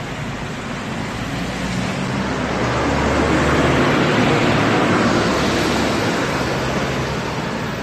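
Street traffic noise: a motor vehicle passing with a low engine hum, the noise swelling to its loudest in the middle and fading toward the end.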